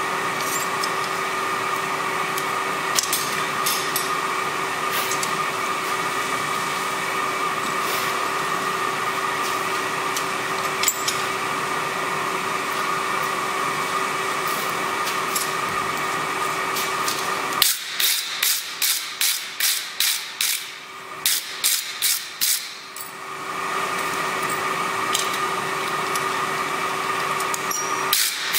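A steady machine hum with a few light metallic clicks, like a forge blower fan running. About two-thirds of the way through, the hum cuts out and two quick runs of sharp hammer strikes on steel at the anvil follow, about three a second. The hum then builds back up, and more strikes start right at the end.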